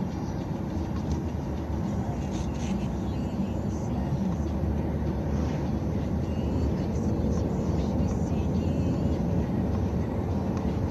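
Steady low road and engine noise of a car driving in city traffic, heard inside its cabin.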